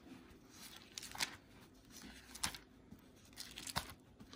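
Thin Bible pages being turned by hand: a few faint, short paper rustles about a second apart.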